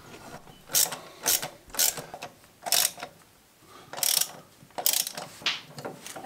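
Metallic clicks and rasps from the front wheel hub of a 1954 Land Rover Series 1, about eight irregular strokes, as the wheel and the half shaft are turned by hand. The wheel spins without driving the shaft: either the half shaft or the drive flange is stripped.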